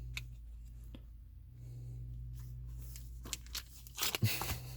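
Magic: The Gathering booster pack and cards being handled: scattered crinkles and small clicks, with a short burst of tearing and rustling near the end, over a steady low hum.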